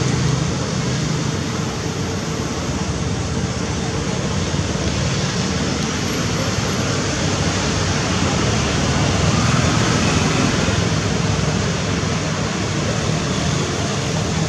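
Steady road traffic noise, an even unbroken rush with a faint steady hum under it.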